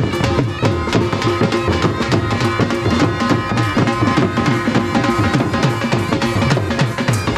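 Music with fast, dense drumming under held melody notes.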